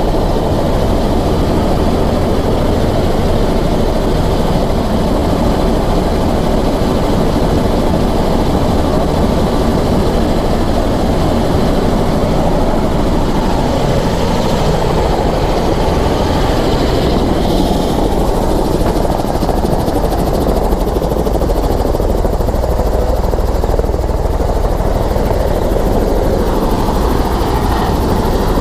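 Eurocopter EC130 helicopter's turboshaft engine and rotor running steadily, first heard from inside the cabin. Partway through it becomes the same helicopter heard from outside on the helipad with its rotor still turning.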